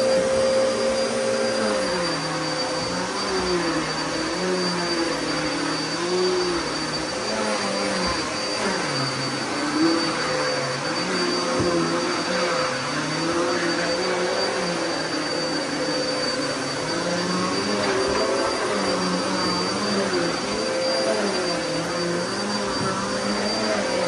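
Upright vacuum cleaner running steadily as it is pushed back and forth over carpet: a constant motor whine with a lower tone that rises and falls about once a second.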